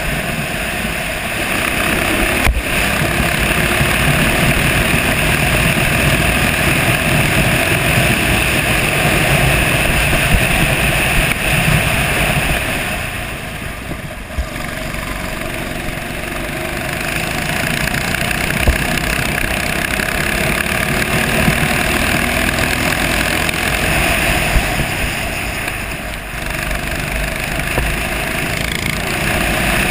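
Racing kart engine running hard, heard onboard with air rushing past. It eases off briefly about halfway through and again near the end as the kart slows for corners, then pulls again.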